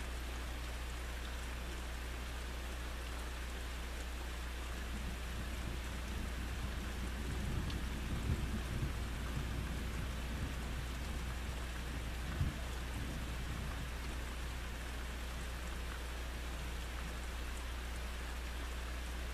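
Steady rain falling with a low rumble of thunder that builds about a quarter of the way in and rolls on past halfway, ending in a short sharp jolt about two-thirds through.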